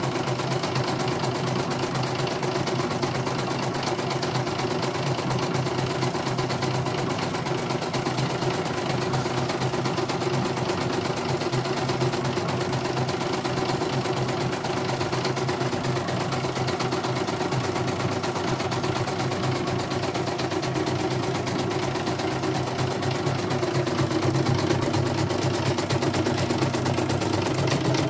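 CNY portable home embroidery machine stitching out a design: a steady motor hum under a fast, even clatter of needle strokes, a little louder near the end.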